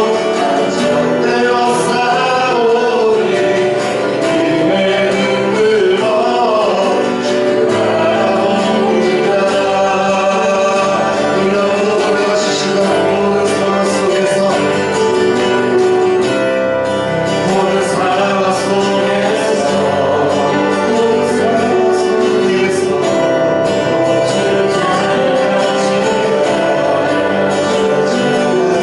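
Church praise team singing a Korean worship song with instrumental accompaniment, steady and continuous.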